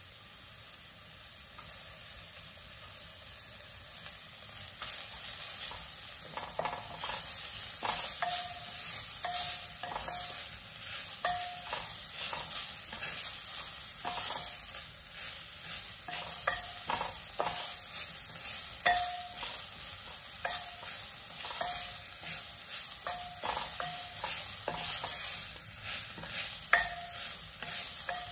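Herb paste sizzling in oil in a pot. From about six seconds in, a wooden spatula stirs and scrapes against the pot in quick irregular strokes, with short ringing scrapes over the steady frying hiss.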